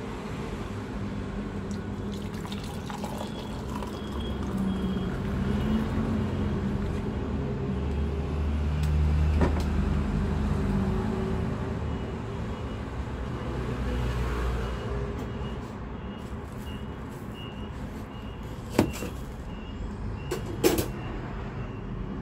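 Hot pineapple-peel water poured through a metal mesh strainer into a glass mug, splashing as the mug fills, over a steady low rumble. A few sharp clinks of metal or glass come in the last few seconds.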